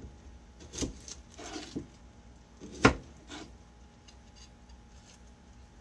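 Kitchen knife knocking and scraping on a cutting board while the dry papery skins are peeled off small whole onions: a few sharp knocks, the loudest about three seconds in, with a short rustle between them.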